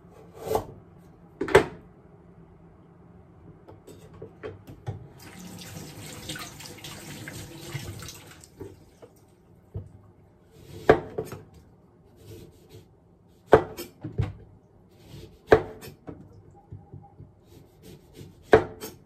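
Kitchen knife chopping through ginger root onto a wooden cutting board: a few sharp, separate knocks, loudest near the start and in the second half. In the middle a tap runs into the sink for about three seconds.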